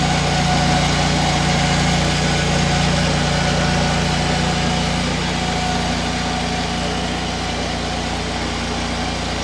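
Hudson portable bandsaw mill's engine running steadily, easing off slightly toward the end.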